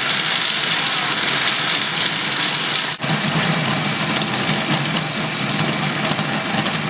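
Food processor running loud and steady, grinding macadamias, hazelnuts and dates into a sticky raw cake base until the mixture binds. It drops out for a moment about three seconds in and cuts off at the very end.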